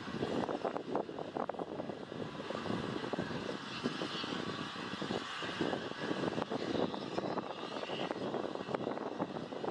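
Steam locomotive working under steam, a continuous run of exhaust chuffs, several a second.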